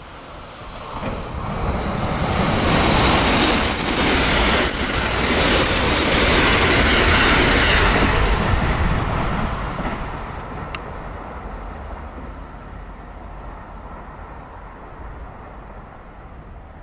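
A limited express electric train passing at speed: its wheel-and-rail noise builds over a couple of seconds, stays loud for about six seconds as the cars go by, then fades as it draws away. A single sharp tick sounds about ten seconds in.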